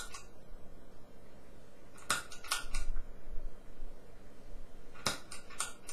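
Idle bass rig hum and hiss, broken by two quick runs of about three sharp clicks each, around two and five seconds in: the bit-crusher pedal's footswitch being stomped on and off. The background noise sounds the same with the pedal on or off.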